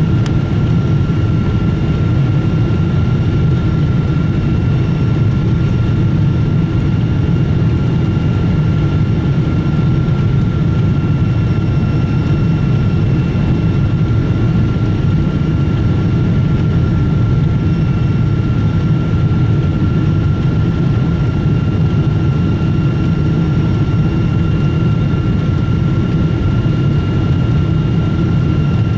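Steady in-cabin noise of a Boeing 777-200ER in flight on approach, heard from a seat over the wing: a deep, even rush of engines and airflow with a thin steady whine running through it.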